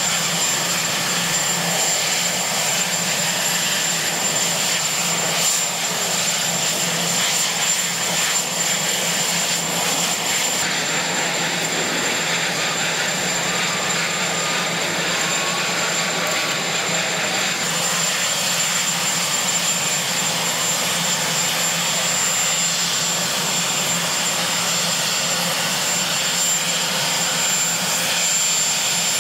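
Marine One, a Sikorsky VH-3 Sea King helicopter, running on the ground with its rotors turning: a loud, steady turbine-and-rotor noise with a thin high whine throughout.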